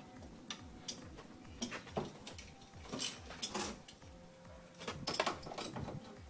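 Power window regulator assembly clinking and knocking against the door as it is worked into place: a scatter of irregular clicks and rattles, busiest near the end.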